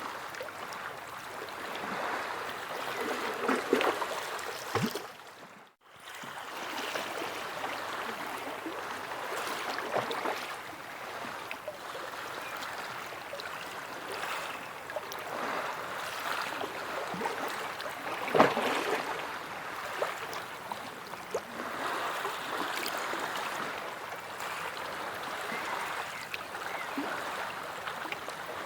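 Sea waves washing in, a continuous rush of surf that swells and eases every few seconds, with sharper splashes about four and eighteen seconds in. The sound cuts out for about half a second around six seconds in.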